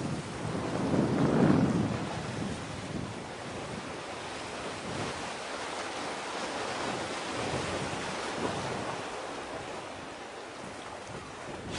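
Wind buffeting the microphone over the wash of sea water, with a strong gust about a second in.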